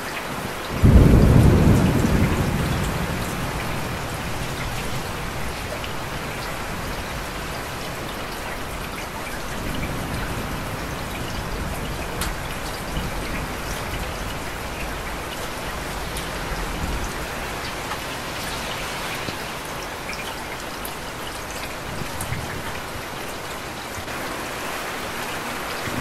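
Steady rain with a loud clap of thunder about a second in that rumbles away over a few seconds, and a fainter low rumble of thunder about ten seconds in.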